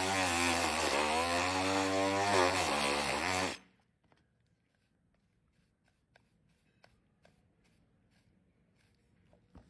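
Electric power tool motor running under load, its pitch sagging and recovering, then switched off abruptly about three and a half seconds in. Only a few faint clicks and taps follow.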